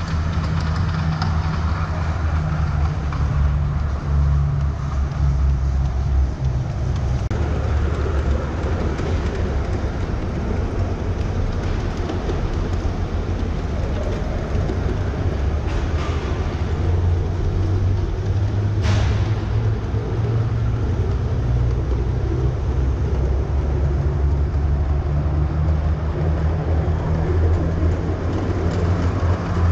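Ride-on live-steam garden railway train running along the track: a steady low rumble from the wagons rolling on the rails. A sharp click about 19 seconds in.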